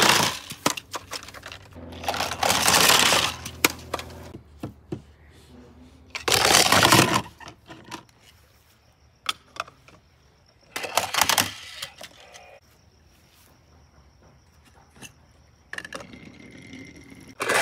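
Plastic toy cars clattering and rolling on a plastic playset ramp: several short bursts of rattling, with separate clicks and knocks between them.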